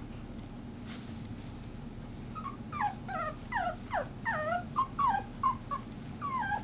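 Puppies whimpering and yelping in play: a quick run of about a dozen short, high cries, each falling in pitch, starting a couple of seconds in.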